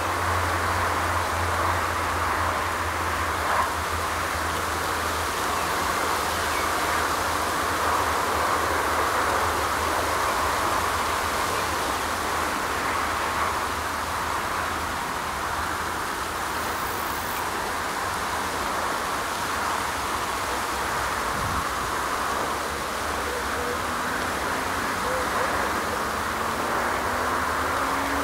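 Steady outdoor background noise: a constant hiss over a low rumble, with no bell or train. A faint engine tone rises slowly near the end.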